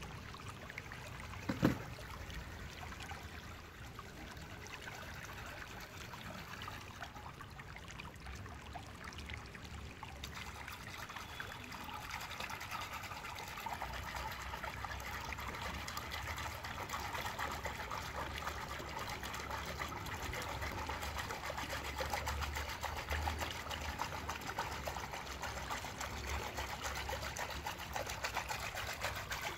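A hand swishing and churning soapy water in a large stainless steel bowl, the sloshing growing louder about halfway through. A single sharp knock sounds near the start.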